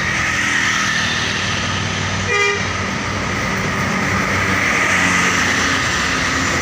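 Roadside traffic passing, with steady engine and tyre noise, and a short single vehicle-horn toot about two and a half seconds in.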